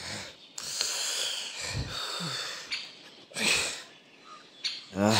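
Men breathing hard in ragged gasps, with a short falling groan about two seconds in and another voiced grunt near the end.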